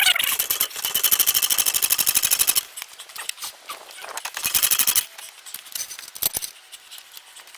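Floor jack raising the rear of a car under the differential: rapid, even clicking, about ten clicks a second, in a run of a second and a half and a shorter run about four seconds in, with a few single clicks between.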